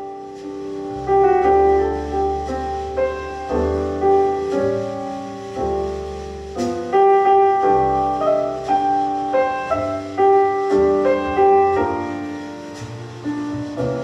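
Piano music over deep bass notes played through a Bang & Olufsen Beosound Balance wireless speaker, fading in over the first second.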